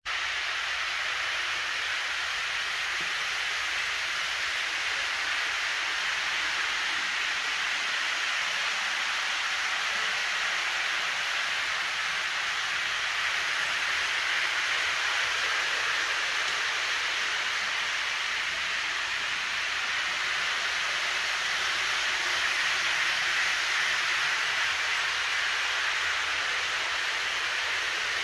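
Model trains running on the layout's track, a steady whirring and rolling hiss from motors and wheels on the rails, growing a little louder about halfway through.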